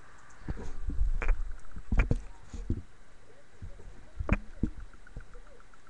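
Handling noises: knocks, taps and rustling as a sealed trading-card box and cards are picked up and moved about on a desk. They are busiest in the first two seconds, with a last couple of knocks past four seconds.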